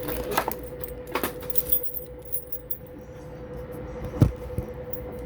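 Keys on a ring hanging from a Master padlock's shackle jingling, with small metal clicks as the lock is handled and picked, and a single louder knock about four seconds in.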